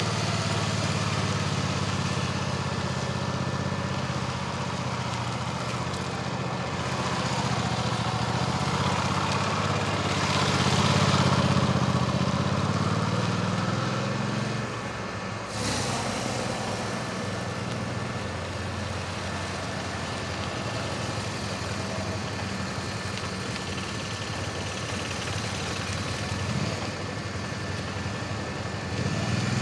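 Motorcycle engine running at low, fairly steady revs as the bike is ridden slowly between cones, briefly louder a little before the middle, with an abrupt break about halfway through.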